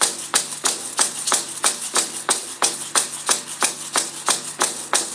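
Two drums, a hand-held frame drum and a large standing drum, struck with padded beaters in a steady beat of about three strokes a second.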